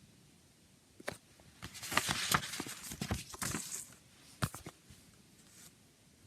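Handling of a CD jewel case and its booklet: a run of plastic clicks and rustling, then a single sharp click.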